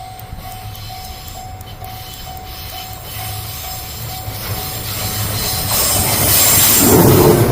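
Level-crossing warning bell dinging about twice a second as a Fujikyu 1000 series electric train approaches. The train's running noise grows louder from about three seconds in until it covers the bell near the end.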